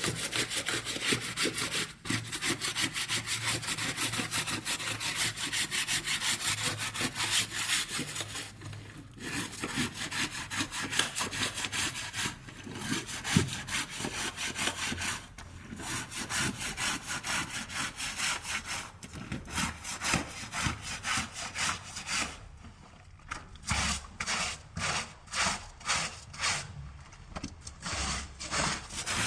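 Small stiff scrub brush scrubbing soapy denim jeans by hand in quick back-and-forth strokes, with a few brief pauses. Near the end the strokes become more spaced out, about two or three a second.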